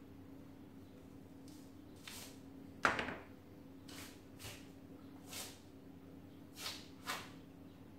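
Roe buck hide being pulled off the hanging carcass by hand: a series of short tearing sounds as the skin comes away from the flesh, the loudest and sharpest about three seconds in.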